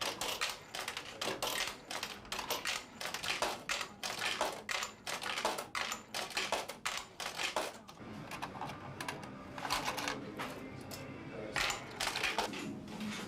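Rapid metallic clicking and clinking of euro coins being fed into a vending machine's coin mechanism, dense for about eight seconds, then sparser clicks over a steady low hum.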